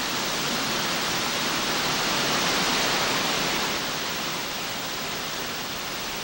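Waterfall pouring into its pool: a steady rush of falling water, louder in the first few seconds and easing back a little about four seconds in.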